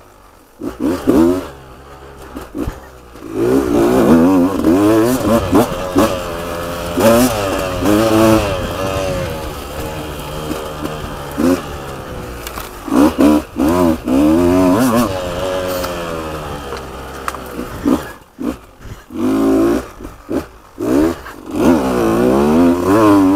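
Beta 200 RR two-stroke dirt bike engine revving up and down over and over as the throttle is opened and closed, with brief drops off the throttle.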